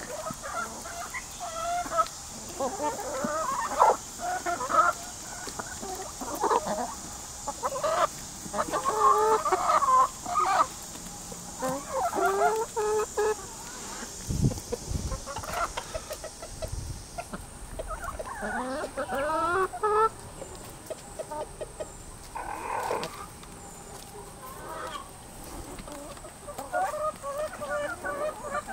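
A flock of backyard hens clucking and calling in quick, overlapping runs, with a few sharp clicks mixed in.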